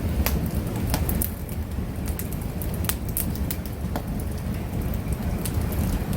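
Wood fire burning on resin-soaked pine fatwood, giving irregular sharp crackles and pops over a steady low rumble.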